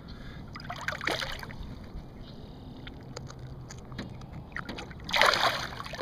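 Water sloshing and splashing as a striped bass is let go at the surface, with a short splash about a second in and a louder splash just after five seconds as the fish kicks away.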